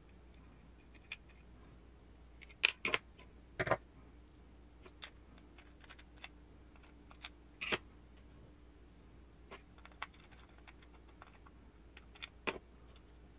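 Small, sparse clicks and taps of a hard plastic part and needle-nose pliers being handled while fitting small M3 nuts, with a few sharper clacks in short clusters.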